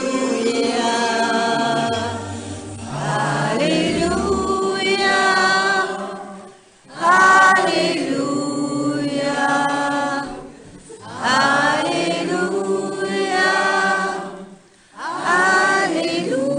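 A group of men and women singing a song together in unison, in long phrases broken by short pauses for breath about every four seconds.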